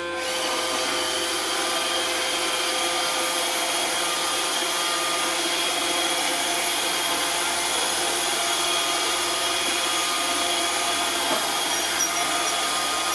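iRobot Roomba robot vacuum running, a steady whir of its motors and brushes with a few faint high tones over it.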